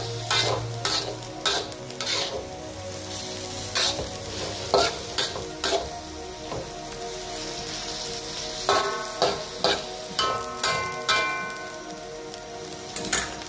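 Spatula scraping and knocking repeatedly against an aluminium wok while sliced venison is stirred and fried, over a steady sizzle. The meat is cooking in the juices it has released.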